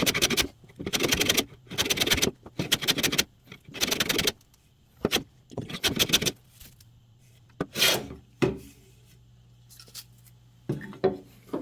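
Hand plane shaving a piece of scrap wood to thickness: about six long scraping strokes, roughly one a second, then a pause with a few light knocks as the plane and workpiece are handled.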